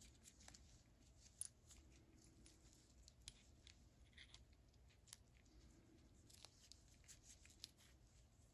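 Faint, scattered small metallic clicks and taps from handling small ratchet parts, the plungers and springs being fitted into the ratchet head during reassembly, with a few sharper ticks among them.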